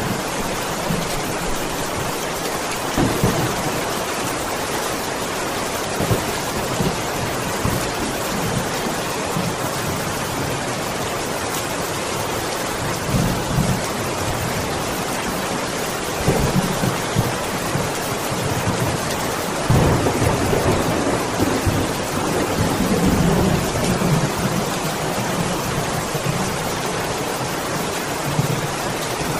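Steady hiss of heavy rain, with rolling thunder rumbling in several times; the longest and loudest rumble comes about two-thirds of the way through.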